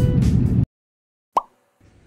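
Guitar background music that cuts off abruptly about two-thirds of a second in, followed by silence and then a single short pop sound effect; faint room tone comes in near the end.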